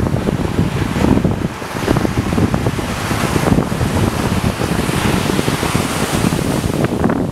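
Surf breaking and washing up a sandy beach, with wind buffeting the microphone in gusts.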